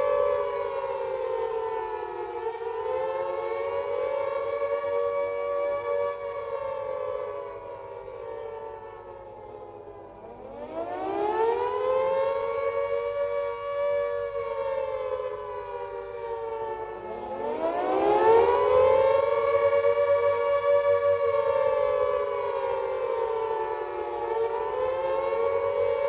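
British WW2 electric air raid siren wailing in a chord of two close notes, its pitch rising and falling in slow cycles: the fluctuating alert signal that warned of a raid. It sinks and fades around the middle, then winds up again twice, each time climbing steeply from a low note.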